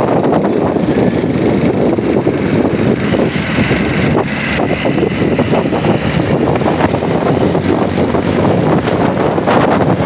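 A motor vehicle's engine running, a steady rumble mixed with wind buffeting the microphone.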